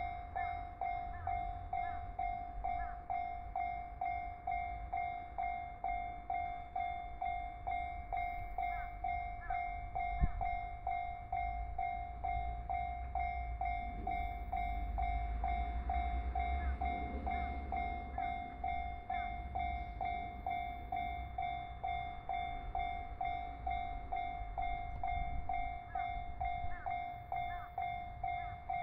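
Japanese railway level-crossing warning bell ringing steadily at about two strokes a second, a single high electronic tone. Under it a low rumble swells through the middle, with one sharp knock about ten seconds in.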